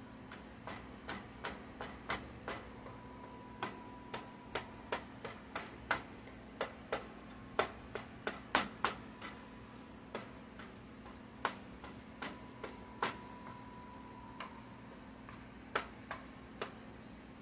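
Wooden spatula knocking and tapping against a skillet while scrambling eggs: irregular sharp taps, about one to three a second, over a faint steady hum.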